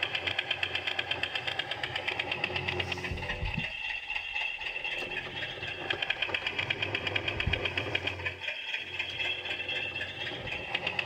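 Garden-railway locomotive running with a fast, even mechanical beat as it works against deep snow on the track.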